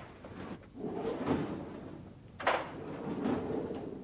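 Wooden sliding door rolling along its track, with one sharp knock about two and a half seconds in.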